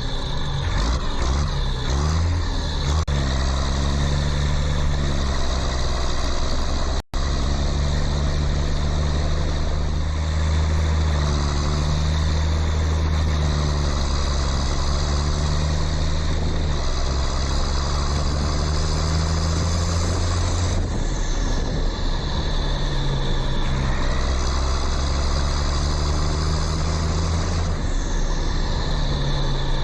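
A low, steady engine-like drone running throughout, its pitch shifting in small steps every few seconds. It cuts out briefly about seven seconds in.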